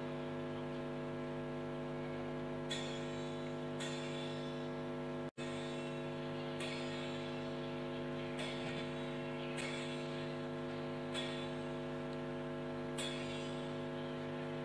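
Steady electrical mains hum, a buzz with many evenly spaced overtones, with about seven faint short knocks at uneven gaps.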